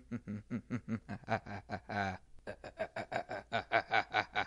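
A child laughing in rapid repeated 'ha' pulses, about five a second. There is a short break a little over two seconds in, then the laughter picks up again.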